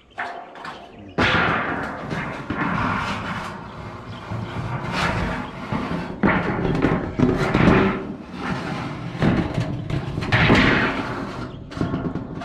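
Repeated loud bangs and clattering, starting abruptly about a second in.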